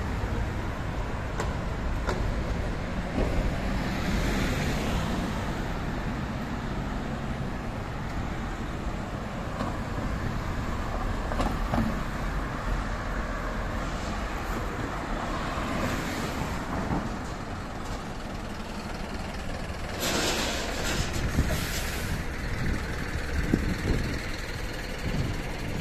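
City street traffic: cars and buses running along the road, a steady rumble. About twenty seconds in comes a sharp hiss lasting about two seconds.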